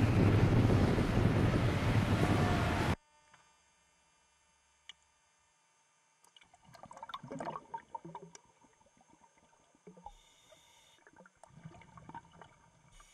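Loud wind buffeting and machinery rumble that cuts off abruptly about three seconds in. Then faint water gurgling and sloshing with small crackles, heard from a camera at and below the sea surface, swelling twice.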